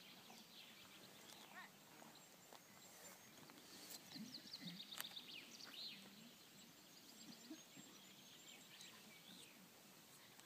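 Faint birdsong, short chirps and twittering trills, over a quiet open-air background hiss, with a couple of sharp clicks near the middle.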